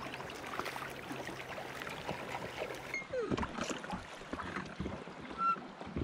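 Inflatable drift raft on a river: an even wash of moving water, then from about three seconds in, knocks and a few short creaks from the oars in their oarlocks as the raft is rowed.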